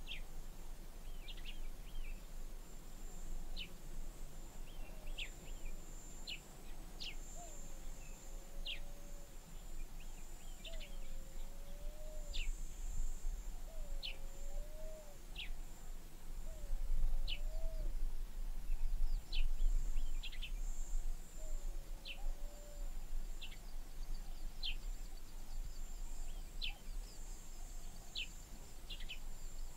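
Grassland ambience: birds give short sharp chirps about once a second over a steady high insect drone. A lower, wavering call comes about five times midway, over a low rumble that swells in the middle.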